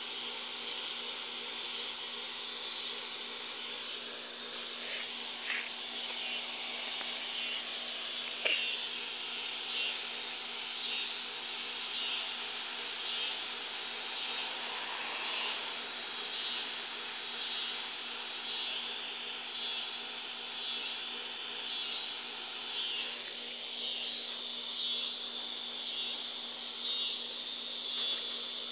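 Steady high hiss of insects with a regular, repeating chirping pulse, broken by a few brief sharp clicks.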